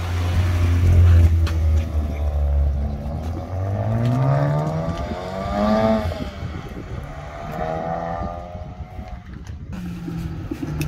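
Honda Civic Type R's turbocharged four-cylinder pulling away from low revs, its engine note climbing steeply about halfway through as it accelerates, then running high again a couple of seconds later.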